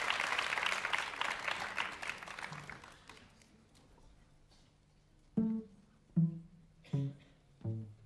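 Audience applause dying away, then after a short lull four plucked string notes less than a second apart, each ringing briefly: pizzicato from a string quartet.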